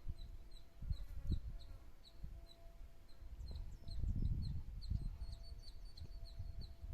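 A bird chirping steadily, about two short high chirps a second, with other calls joining in near the end. Wind gusts buffet the microphone in uneven low rumbles.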